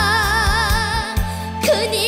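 Young girl singing a trot song over band accompaniment: she holds a long '아' with a wide vibrato, then starts the next line ('그 님은 어디 있나') about a second and a half in.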